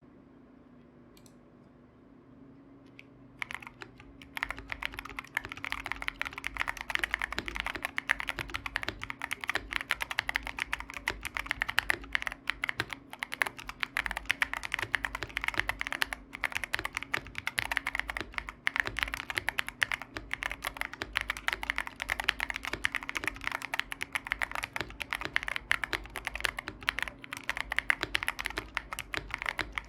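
Fast, continuous typing on a foam-dampened Gas67 mechanical keyboard with factory-lubed Tecsee Ice Mango tactile switches and Mengyu clone keycaps, giving a deep, muted "thocc" keystroke sound. The typing starts about three and a half seconds in, after a quiet start.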